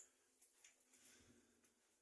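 Near silence, with a few faint short clicks.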